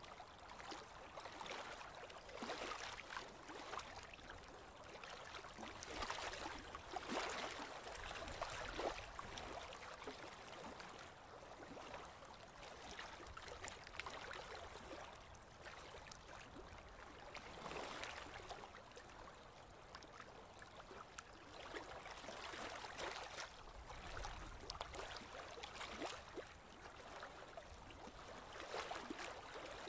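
Faint water lapping and gurgling against a small boat's hull, coming and going in soft swells every few seconds.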